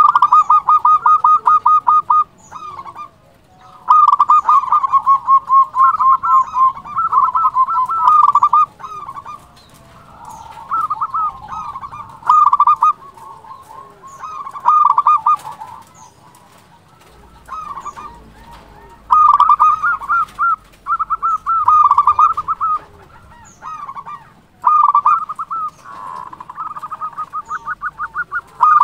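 Zebra dove (perkutut) cooing loudly in repeated phrases of quick rattling notes, each phrase lasting one to a few seconds, with short gaps between them.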